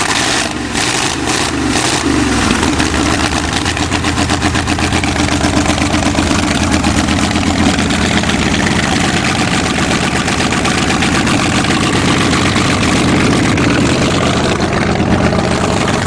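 Old car's engine running steadily just after a cold start on the choke, with a few sharp pops in the first couple of seconds before it settles.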